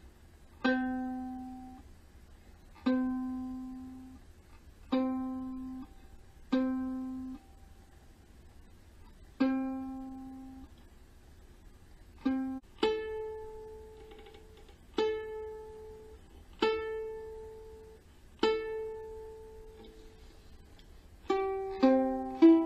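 Kala Ukadelic soprano ukulele being tuned by plucking one string at a time and letting each note ring out. A lower string is plucked five times, then a higher string four times, and near the end a few strings are plucked in quick succession.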